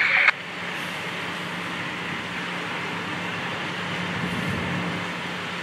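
Fire truck engine idling: a steady drone with a constant low hum. A loud hiss cuts off abruptly just after the start.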